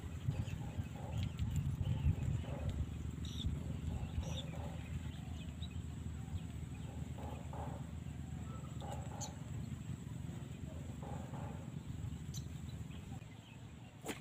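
Wind buffeting the microphone as a low, uneven rumble, with scattered short bird chirps over it.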